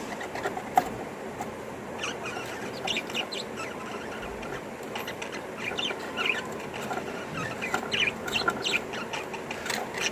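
Budgie chicks cheeping: many short, high chirps in quick, irregular succession.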